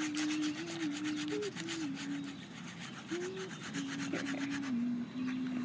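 Acrylic paint brushed onto a stretched canvas with a flat paintbrush, as quick scratchy scrubbing strokes several a second that fade out after about three seconds. A faint thin tone that steps up and down in pitch runs underneath.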